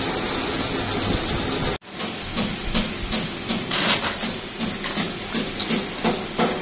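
A steady machine hum, which cuts off abruptly about two seconds in. Then comes rustling and light irregular clattering of moulded PVC tap parts being handled in a woven plastic sack, over a lower steady background hum.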